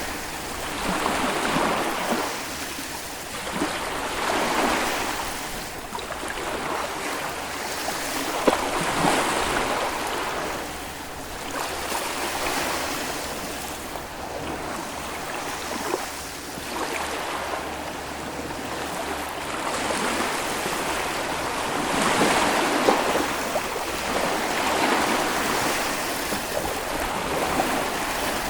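Small Baltic Sea waves breaking and washing up the beach, swelling and easing every two to three seconds, with a few sharp little splashes.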